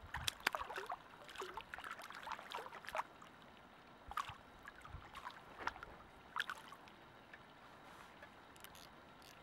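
A hooked carp splashing at the surface of the lake: a run of irregular sharp splashes, busiest in the first three seconds, then a few more between about four and six and a half seconds in.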